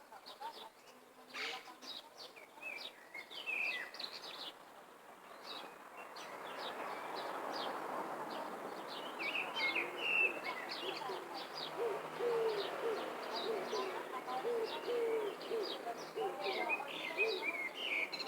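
Birds calling: many short high chirps throughout, and in the second half a low call repeated about twice a second, over a steady hiss that builds about a third of the way in.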